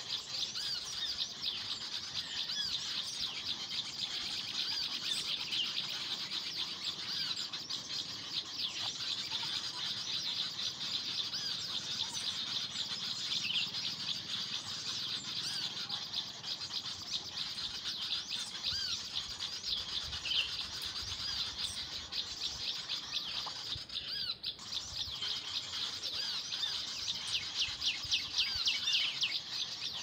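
Many small birds chirping rapidly in a dense, steady chorus of high, short notes.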